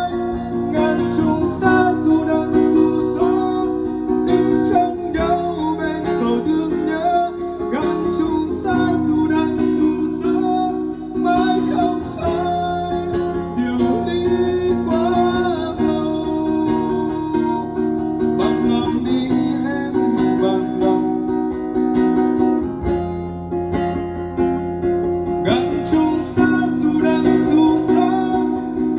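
Instrumental break of a Vietnamese ballad backing track: a plucked guitar melody over held chords, without sung lyrics.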